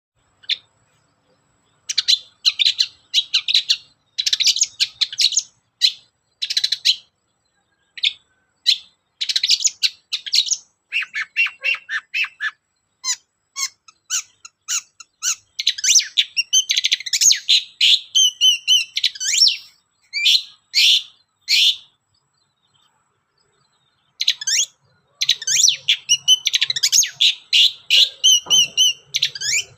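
Long-tailed shrike (cendet) singing: quick runs of harsh, scratchy chattering notes broken by short pauses, with some clearer, ringing phrases mixed in. There is a silent gap of about two seconds a little past two-thirds of the way through.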